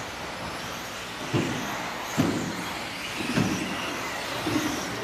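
1/10-scale 2WD electric RC buggies with 17.5-turn brushless motors racing: a steady hiss of tyres and motor whine, with the pitch rising and falling, and about four short thumps spread through.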